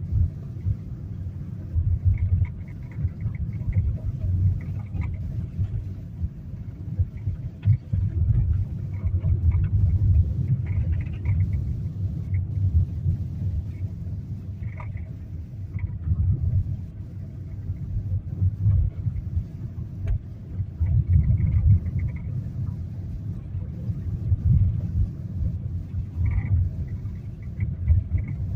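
Steering noise in a new-generation Hyundai Creta: a low, uneven rumble that swells and fades, with light clicks now and then, a sign of a fault in the steering.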